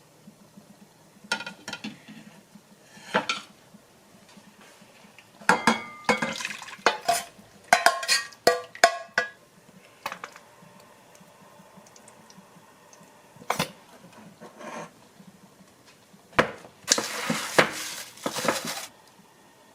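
Dishes and cutlery clinking and clattering as they are handled, in scattered bursts with a busier stretch from about five to nine seconds in. A short rushing noise follows near the end.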